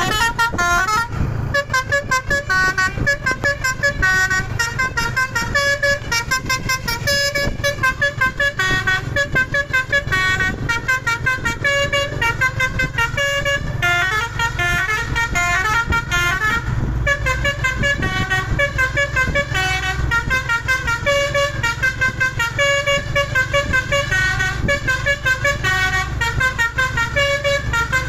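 A container truck's Basuri multi-tone 'telolet' air horn playing a quick melody of short stepped notes without pause, over the steady low running of the truck's engine.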